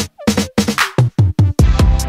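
Electronic background music: a run of short, choppy drum hits with brief gaps between them, then the full beat comes back about one and a half seconds in.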